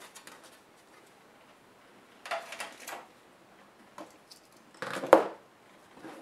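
Plastic bottom case of a Samsung NP305E7A laptop being lifted off and handled: a short scraping rattle about two seconds in, a small click, then a louder clatter ending in a sharp knock about five seconds in.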